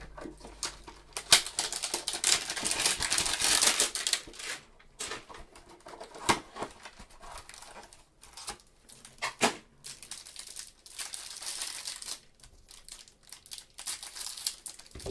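Plastic wrapping of a trading-card hanger box being torn open and crumpled: crinkling in bursts, with a few sharp clicks.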